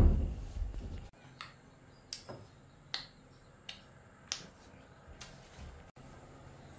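A low thump at the start, then a run of six short, sharp clicks spaced a little under a second apart.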